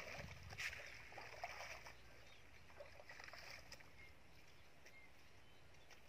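Feet splashing and sloshing through shallow muddy water for about two seconds as a person wades out of a pond, then faint outdoor quiet with a few short chirps.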